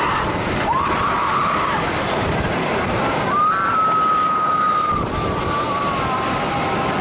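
Intamin suspended catapult coaster train running through its inversions at speed: a steady rush of wind and track noise, with a few long high-pitched tones over it, the longest held about a second and a half near the middle.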